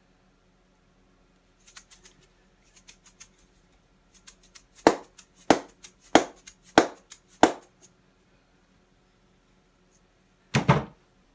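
Hard knocks of a freshly carved hardwood mallet: a few light taps, then five sharp raps a little over half a second apart, and one heavier, duller knock near the end.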